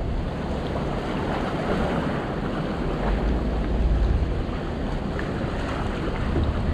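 Wind buffeting the microphone over the steady wash of water, with a low rumble that swells about halfway through.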